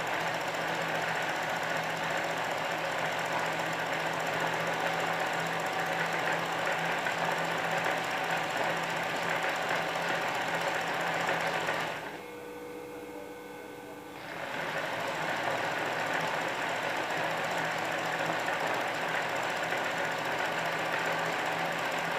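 Juki embroidery machine stitching steadily at speed while the fabric in the hoop is guided by hand for free-motion embroidery. Just past halfway the stitching stops for about two seconds, leaving a quieter hum, then starts again.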